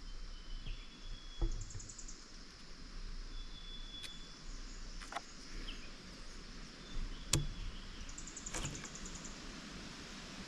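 Outdoor ambience: a steady high insect drone with short bird chirps and two quick trills, broken by a few sharp clicks or knocks. No chainsaw is running.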